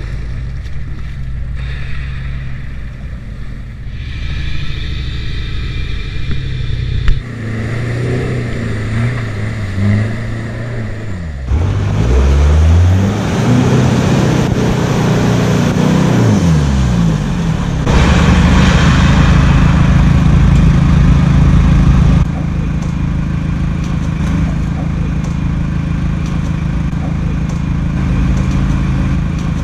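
Four-wheel-drive competition vehicle's engine working in deep mud, running at idle and then revving up and down in several sweeps. The sound changes abruptly a few times.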